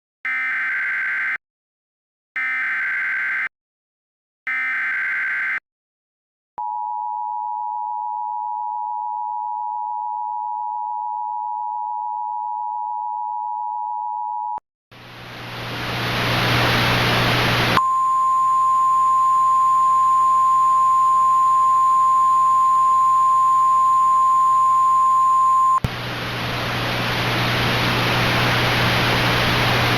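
Emergency Alert System alert opening: three short bursts of SAME header data tones, then the two-tone attention signal held for about eight seconds. It then gives way to a swell of radio static, with the single steady weather-radio warning tone sounding over the static for about eight seconds in the middle.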